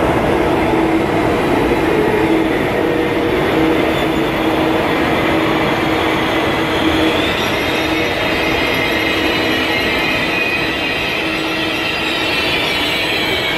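ICE high-speed train rolling slowly past on the adjacent track: a steady rumble of wheels on rails with a low hum. From about halfway through, faint high-pitched wheel squeal joins in.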